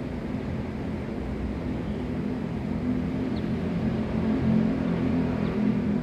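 Low engine rumble of a motor vehicle, growing gradually louder and loudest in the second half. Two faint short high chirps are heard, one a little past the middle and one near the end.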